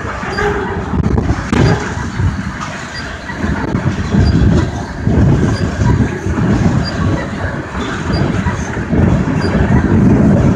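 Freight train tank cars rolling past close by: a steady low rumble of steel wheels on the rails that swells and eases in waves.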